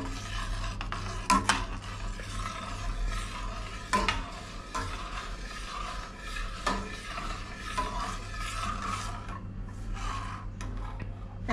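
Stainless steel ladle stirring soup in a stainless steel pot, scraping against the pot with a few sharp clinks.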